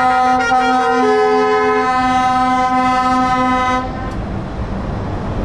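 Multi-tone truck air horns sounding long held chords, changing note a few times, then cutting off sharply about four seconds in, leaving the hiss of passing traffic.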